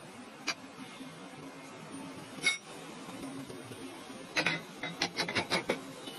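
Workshop machinery: a steady low hum with a single sharp ringing clink about halfway through, then a run of quick clicks at about six a second near the end.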